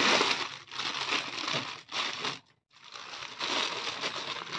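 Thin clear plastic bag crinkling in uneven bursts as it is handled and a plush toy is pulled out of it, with a short pause about two and a half seconds in.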